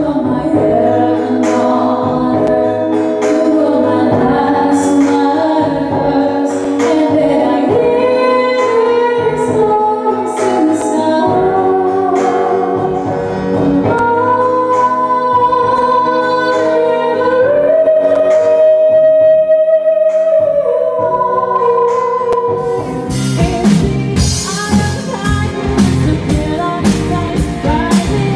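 Female vocalist singing with long held notes over a soft backing. About 23 seconds in, the sound cuts abruptly to a live band with drum kit, electric guitar and bass playing an up-tempo number.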